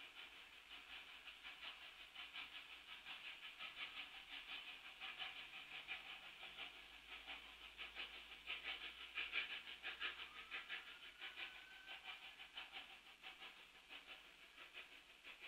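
Faint, distant exhaust chuffs of a narrow-gauge K-36 2-8-2 steam locomotive working hard to pull its train out of the yard, a steady, even run of beats.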